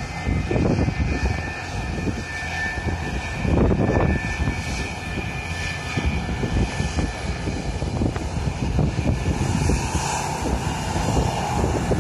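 Airliner engines running close by: a steady high whine over a low rumble, with wind gusts buffeting the microphone.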